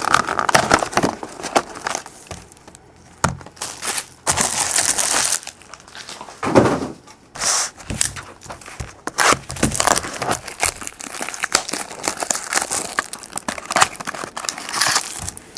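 Plastic and foil card packaging crinkling and tearing in repeated irregular bursts as a trading-card box and its packs are unwrapped by hand.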